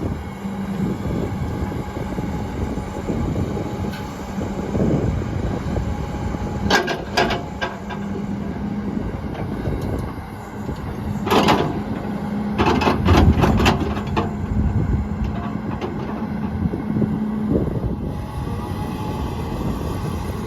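Cummins diesel engine of an XCMG XE210CU hydraulic excavator running steadily under load while the machine is worked. Several sharp metal clanks stand out: a pair about a third of the way in, one just past halfway, and a quick run of them shortly after.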